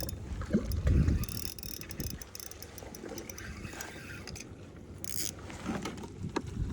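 Water sloshing and knocking around a fishing kayak, with a heavier thump about a second in and scattered light clicks of gear being handled.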